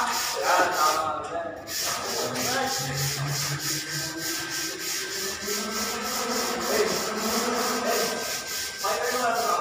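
Sandpaper rubbed by hand over a painted wall, a scratchy hiss in quick, even back-and-forth strokes of about three a second.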